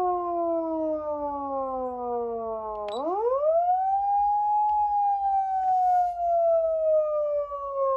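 Clarion A-600F electronic siren amplifier sounding a hidden wail tone set through its DIP switches. The pitch falls slowly, sweeps quickly back up about three seconds in, then falls slowly again.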